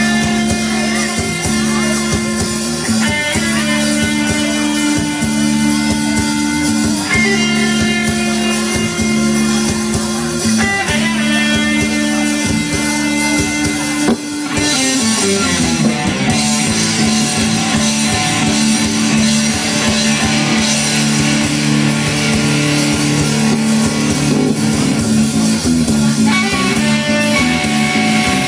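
Band playing guitar-led rock music with drums, with a short break about halfway through before it carries on.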